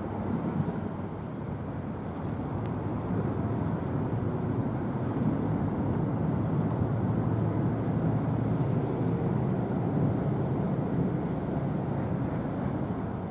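Steady low rumble of distant engines across open water, even and unbroken with no distinct events.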